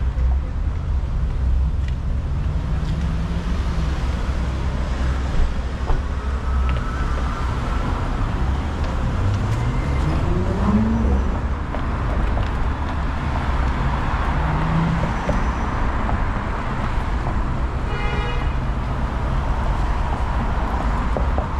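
City street traffic: a steady rumble of cars passing, with one vehicle's engine rising in pitch as it accelerates about ten seconds in.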